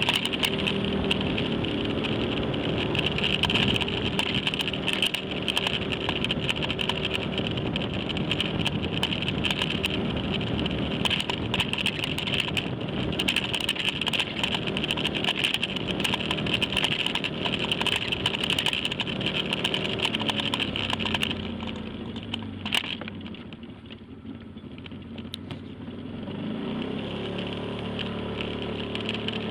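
Motorcycle engine running steadily at low speed, with a constant high hiss and frequent small clicks. About two-thirds of the way through it eases off and goes quieter, then picks up again near the end.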